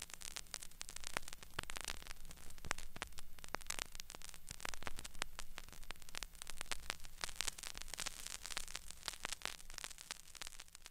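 Crackling static full of irregular clicks and pops over a faint low hum, thinning out near the end.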